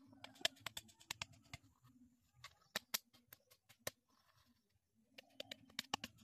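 Faint, irregular sharp clicks and light taps from a sickle and thin bamboo stakes being handled, over a quiet outdoor background.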